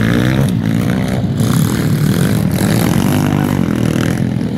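Small single-cylinder pit bike engines revving as riders pass on a dirt track, the pitch rising and falling with the throttle.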